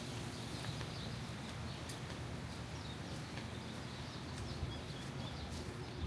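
Outdoor ambience: small birds chirping over and over, with a few faint clicks over a steady low background rumble.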